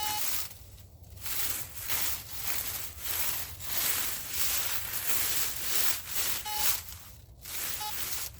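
Metal detector giving three short beeps, one near the start and two near the end, over repeated rustling and scraping in dry leaves and dirt.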